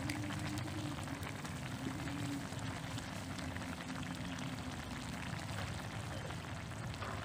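Brothy stir-fry of cucuzza squash and pork simmering in a wok, bubbling steadily with a run of small pops and crackles.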